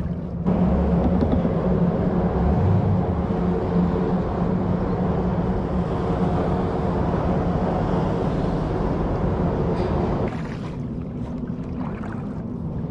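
Tyre hum from traffic crossing the steel grid deck of a truss bridge overhead, a steady drone that drops away about ten seconds in.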